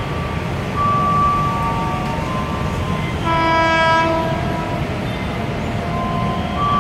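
A JR 205 electric commuter train's horn sounding once for about a second, a little past the middle, as the train approaches. Under it there is a steady low rumble and scattered ringing tones.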